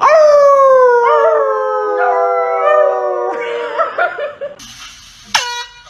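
A dog howling: one long howl of about three seconds that slides slowly down in pitch, followed by a few shorter wavering notes and a brief sharp cry near the end.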